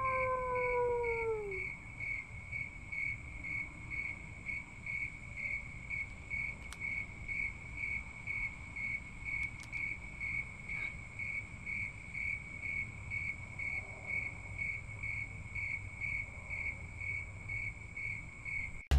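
Crickets chirping steadily, about two to three high chirps a second, over a low outdoor rumble. A howl glides down in pitch and fades out in the first second and a half.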